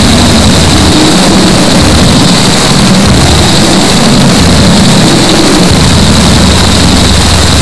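Loud, distorted harsh noise from a gorenoise recording: a dense wall of static with a low rumble that comes and goes irregularly underneath.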